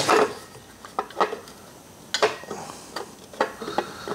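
Light metallic clicks and taps, about half a dozen at irregular intervals, as a stainless motorcycle exhaust end can and link pipe are handled and knocked into position on the bike.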